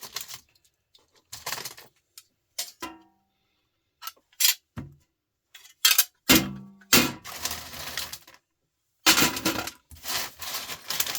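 Metal parts from a stripped fluorescent light fitting clinking and clattering as they are handled and set down, several separate knocks and rattles with one short metallic ring about three seconds in.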